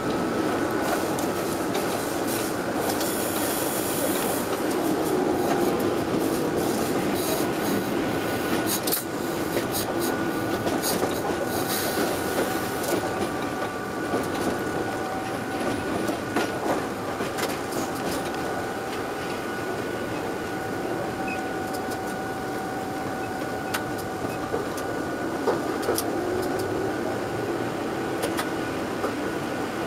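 Train running over the track, heard from the front cab: a steady rolling rumble with a faint steady whine. Sharp clacks come as the wheels cross points and rail joints, bunched a few seconds in and again around ten seconds in.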